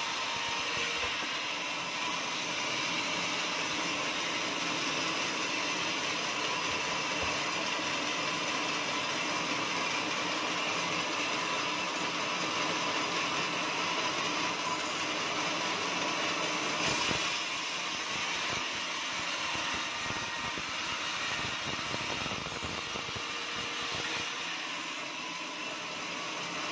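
Band sawmill running steadily, its blade ripping lengthwise through a teak beam. There is a single sharp knock about two-thirds of the way through.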